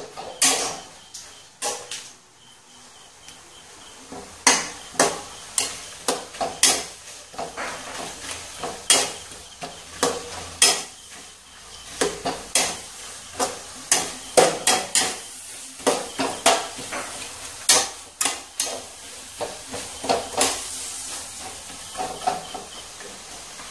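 Metal spoon stirring sliced onions, chillies and coconut frying in coconut oil in a black wok, with irregular clicks and knocks of the spoon against the pan. Under it the frying sizzles, becoming a steadier hiss near the end.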